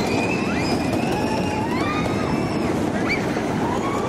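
Spinning amusement-park car ride running: a steady, loud rumbling noise with thin high squeals sliding up and down over it.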